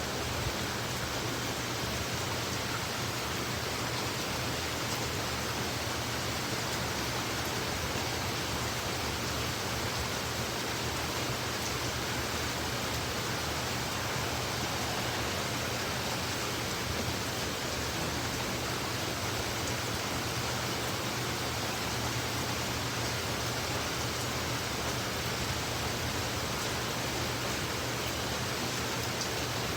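Heavy rain falling, a steady, even hiss with no letup.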